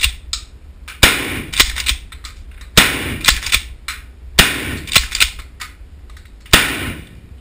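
Shotgun fired four times, about every one and a half to two seconds, each blast ringing on in the range, with one or two sharper cracks after each.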